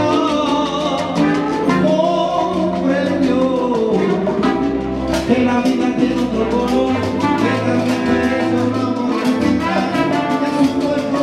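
Live Cuban salsa band playing at full volume, with hand-drum percussion keeping a steady beat under singing voices.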